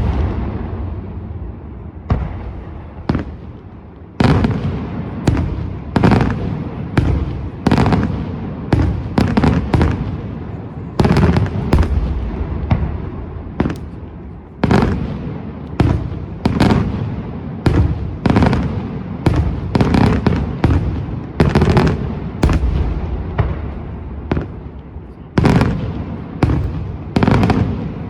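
Daytime fireworks display: aerial shells bursting one after another, a loud bang roughly every second, each followed by a rumbling echo that dies away.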